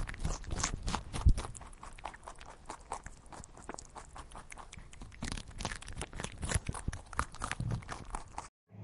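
Irregular crunching and knocks from a farm animal moving or feeding close by, with one louder knock about a second in; it cuts off suddenly near the end.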